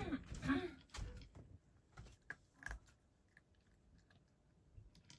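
A cat crunching dry food from its dish: irregular crisp crunches, louder and closer together in the first three seconds, then fainter and sparser.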